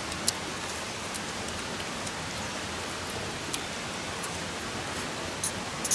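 Steady rushing noise with a few faint clicks, one about a third of a second in and a couple near the end.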